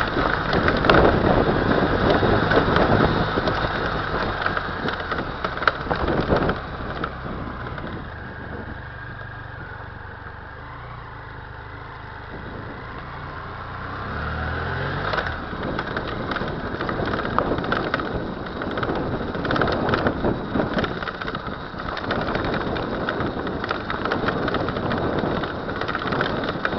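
BMW F 800 GS parallel-twin motorcycle running with its chain drive, with wind noise and repeated sharp clicks and knocks in the rear drivetrain. The noise is a clanking from the rear end that the dealer calls normal chain noise, on a chain with 35 mm of slack. It quietens through the middle, then grows louder again just past the middle.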